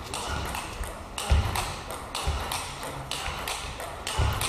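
Table tennis rally: the ball clicks off bats and table in quick succession, with a few heavy thuds of players' feet on the hall floor.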